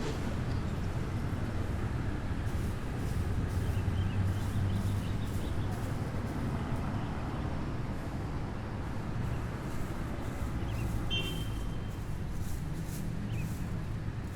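City street traffic: a continuous rumble of vehicle engines and tyres passing, swelling and easing a little, with a brief high chirp about eleven seconds in.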